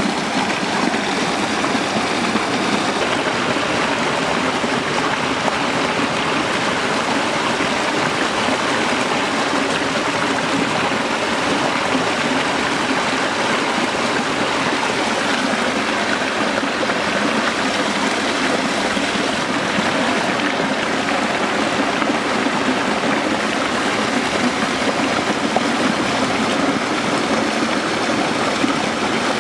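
Small waterfall and stream running, a steady, unbroken wash of water.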